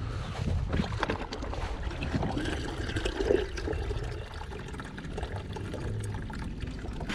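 Shallow water trickling and lapping at the kayak's hull, over a low rumble.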